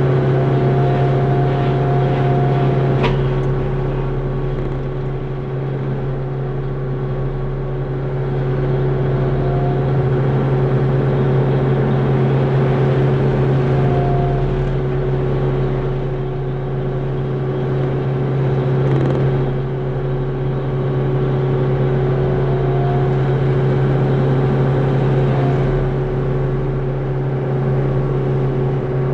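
John Deere 60P mini excavator's diesel engine and hydraulics running steadily while driving a forestry mulcher head, a constant loud drone with a faint whine that briefly shifts in pitch a few times.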